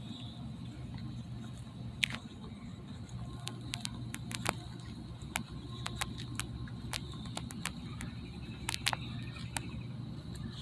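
Steady low outdoor rumble with a faint high steady tone, broken by a scattered run of sharp clicks and taps from handling the phone while walking.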